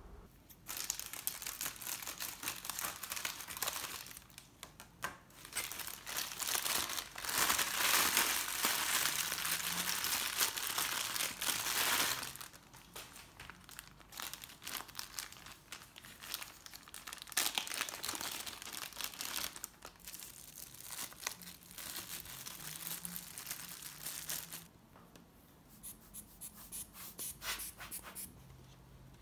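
Thin plastic bag crinkling as a rubber air-blower bulb for camera dust is unwrapped from it. The crinkling is dense and loudest in the first half, then thins to scattered crinkles and a few soft clicks near the end.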